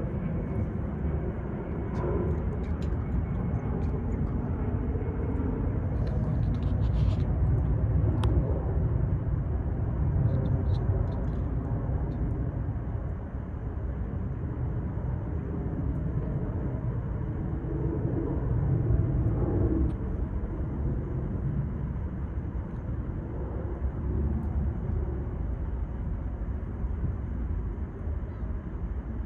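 Steady low outdoor rumble that swells and eases gently, with a few faint clicks.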